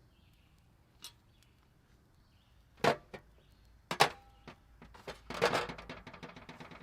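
Cast iron waffle iron being handled: a few sharp knocks and clanks, one of which rings briefly like struck metal, then a busier second or so of clatter and scraping.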